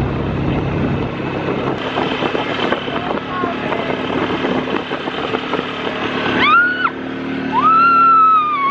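ATV engine running steadily. Over it a person gives a short high shriek about six and a half seconds in, then a longer whoop that slowly falls in pitch near the end.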